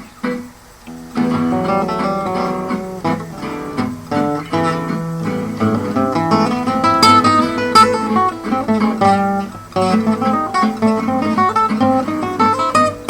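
Acoustic guitar playing a waltz: quick runs of plucked melody notes over chords, picking up again after a short pause about a second in.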